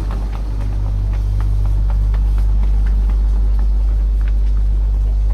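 Supermarket ambience: a steady low hum under scattered small clicks and clatter, with no voices standing out.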